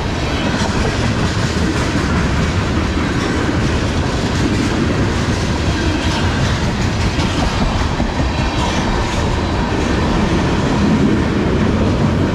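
Freight train of tank cars rolling past at close range: steady noise of steel wheels running on the rails, with clickety-clack over the rail joints.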